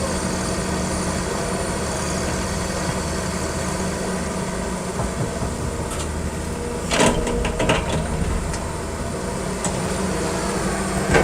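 Excavator diesel engine running steadily, with a cluster of clattering knocks about seven seconds in and one sharp knock near the end.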